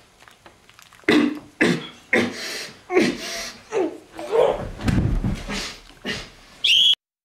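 A young man beatboxing with his hands cupped over his mouth: a string of sharp vocal percussion sounds in an uneven rhythm, starting about a second in. Near the end comes a brief high rising note that cuts off suddenly.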